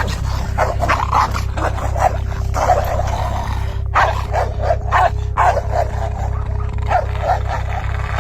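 A dog barking repeatedly, about two to three barks a second with brief pauses, over a steady low pulsing beat.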